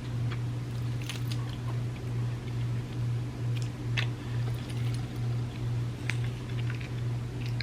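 Close-miked chewing with short wet mouth clicks, from eating soft cookie cups and chocolate wafers. Under it runs a steady low hum that swells and fades about twice a second.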